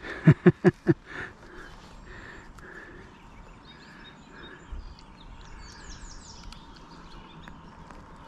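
A songbird calling with a quick series of high, down-slurred chirps about four to six seconds in, over a steady outdoor hiss.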